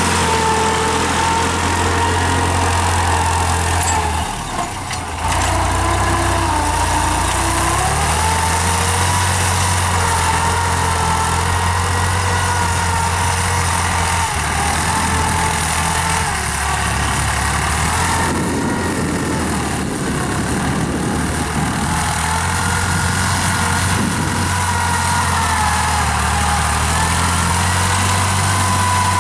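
New Holland TT55 tractor's three-cylinder diesel engine running steadily under load while pulling a tine cultivator, its pitch wavering slightly. It is briefly quieter about four seconds in.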